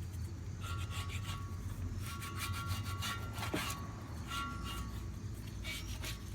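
Repeated scraping strokes as paint, softened by aircraft paint remover, is scraped off a Willys Jeep's steel wheel rim and comes away easily.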